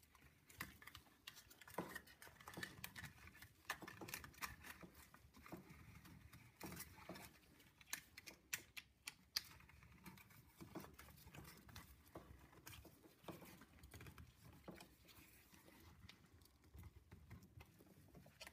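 Faint, irregular small clicks and rustles of gloved hands handling a band-type piston ring compressor on an oiled piston: metal bands and latch clicking, with rubber gloves rubbing.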